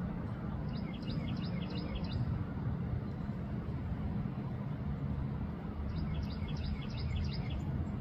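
Two short runs of quick, high bird chirps, one about a second in and one near the end, over a steady low rumble of background noise.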